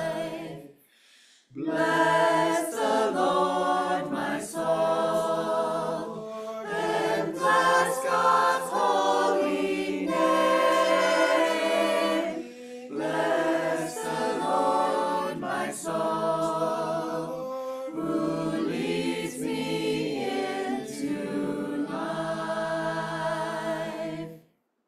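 Church choir singing a sacred chant in several voice parts, phrase after phrase with short breaths between them, stopping just before the end.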